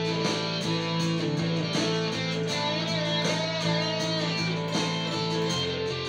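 Stratocaster-style electric guitar played through an audio interface over an eighties-style backing track with a steady beat and sustained bass notes; a note is bent and wavers about three seconds in.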